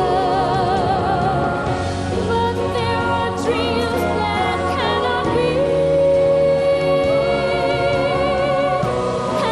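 Music: a singer holding long notes with vibrato over a sustained accompaniment.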